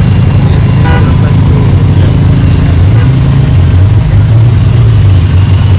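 Engine of a modified off-road 4x4 idling close by, a steady low-pitched running sound that wavers slightly in pitch partway through.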